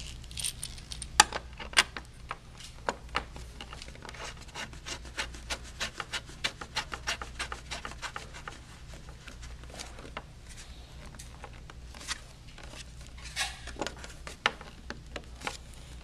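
A coaxial cable connector being screwed by hand onto a metal antenna port: many small, irregular clicks and scrapes of metal on metal as it is turned and tightened. A few sharper clicks come about a second in and near the end, over a steady low hum.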